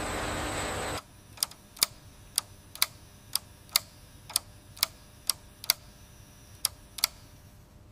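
Sharp clock-like ticking, about two ticks a second, beginning about a second in after a steady hiss cuts off, and stopping shortly before the end.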